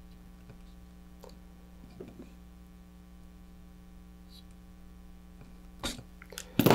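Hand wire strippers stripping insulation from thin red and black wires: a few faint handling clicks, then two sharp snaps near the end as the jaws close. A steady low electrical hum runs underneath.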